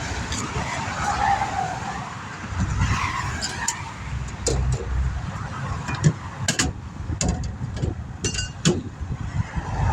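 Interstate traffic rushing past, with cars whooshing by in the first few seconds. From about four seconds in come several sharp clicks and metallic taps.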